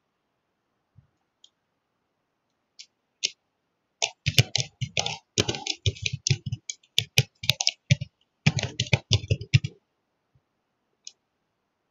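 Computer keyboard being typed on: a quick run of keystrokes lasting about six seconds, starting about four seconds in, with a couple of single clicks before it. A single mouse click follows near the end.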